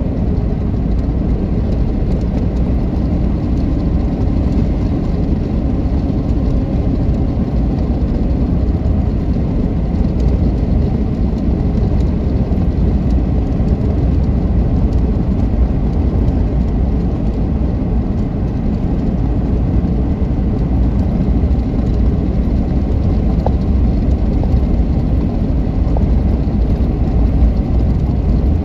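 A car driving at steady speed, heard from inside the cabin: an even low rumble of tyres and engine.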